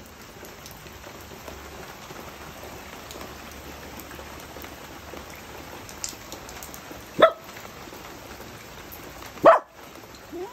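Steady rain falling on a wet paved patio. Near the end a small dog gives two short, loud barks, then a fainter one.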